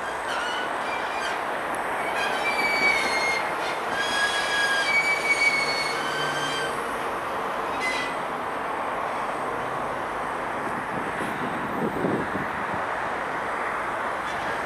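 Metal squealing and grinding over a steady rumbling noise: several high squeals come and go in the first half, with a few sharp clicks.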